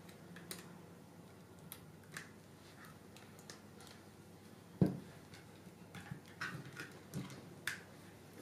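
Plastic handling clicks and knocks from a DJI Mavic Pro remote controller as a phone is fitted into its holder: scattered small clicks, one louder knock about five seconds in, and a quick run of clicks near the end.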